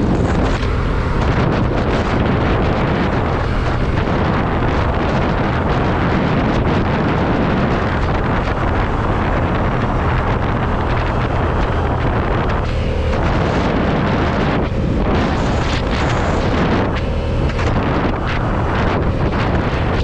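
Heavy wind noise buffeting the camera microphone on a moving motorcycle, a loud, steady rush with no letup.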